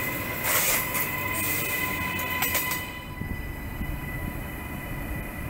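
Queensland Rail electric suburban train passing close by: loud rushing wheel-on-rail noise with several sharp clicks and a steady high whine. About three seconds in the noise drops suddenly to a quieter rumble, the whine still present, as a New Generation Rollingstock train runs into the station.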